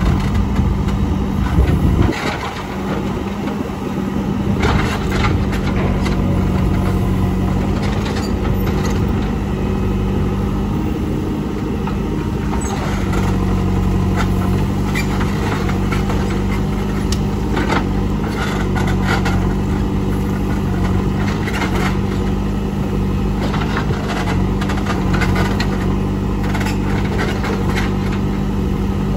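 JCB 3CX backhoe loader's diesel engine running steadily under working load, with frequent short knocks and clanks throughout. The engine note dips briefly about two seconds in.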